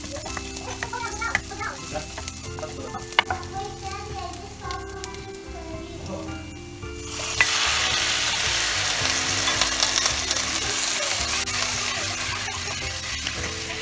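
Onion and garlic sizzling in hot oil in a frying pan, stirred with a wooden spoon, with scattered scraping clicks. About seven seconds in, raw chicken pieces go into the hot pan and a much louder sizzle breaks out, easing slowly as they are stirred.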